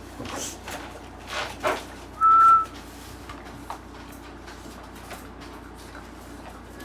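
A single short, steady, high-pitched whistle a little over two seconds in, the loudest sound. Before it come a few brief, soft animal noises from a puppy.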